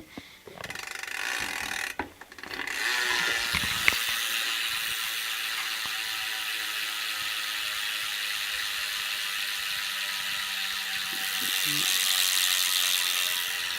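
Shadow Conspiracy BMX rear hub freewheeling as the rear wheel is spun, its pawls clicking in a fast, steady buzz. The buzz starts after a couple of seconds of handling clicks and keeps going as the wheel spins on for a long while.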